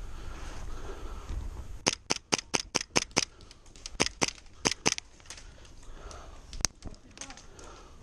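Airsoft gunfire: a rapid string of sharp cracks about two seconds in, at roughly six a second, then two short volleys around four to five seconds and a single crack near seven seconds.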